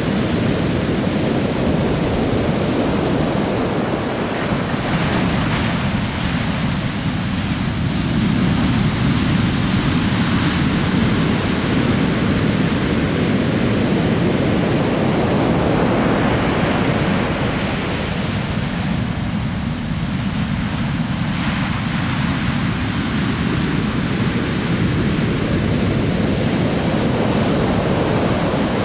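Heavy Atlantic surf breaking and washing up a sandy beach: a continuous loud rush of white water that swells and eases as successive waves break.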